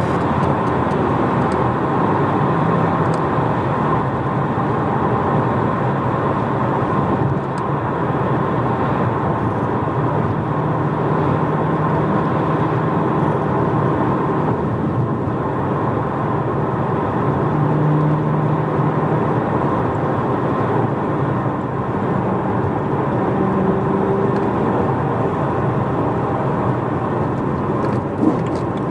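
Cabin sound of a BMW E92 M3's 4.0-litre V8 with a primary-decat X-pipe and stock rear silencer: engine, exhaust and road noise at a steady cruise, with brief clicks near the end.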